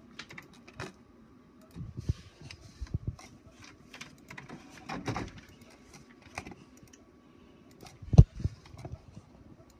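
Scattered small clicks and taps of handling, with one heavy thump about eight seconds in, over a faint steady hum.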